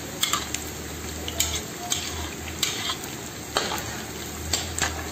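Onion rings frying in hot oil in a metal kazan, sizzling steadily, while a metal utensil stirs them and clicks against the pot about eight times.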